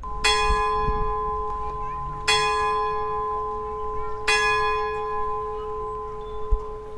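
A large tower bell struck three times, about two seconds apart, each stroke ringing on and blending into the next. There is a brief knock near the end.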